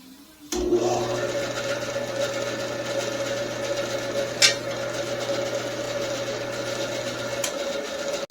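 Atlas 912 band saw switched on with a click about half a second in, then running steadily with a constant low hum and a higher steady whine. A sharp tick comes about halfway through, the hum drops out near the end, and the sound cuts off suddenly.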